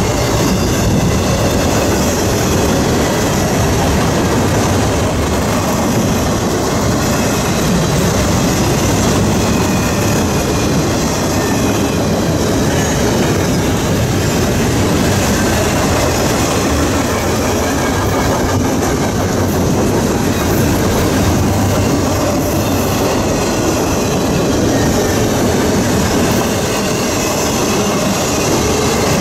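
Double-stack intermodal freight train passing at a steady speed: a continuous, even noise of steel wheels rolling on the rails under the long string of container-laden well cars.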